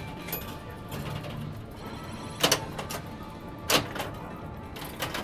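Bally Truck Stop pinball machine in play: several sharp mechanical clacks from its flippers and solenoids, the loudest about halfway through and again a second later, over the machine's electronic music and sound effects.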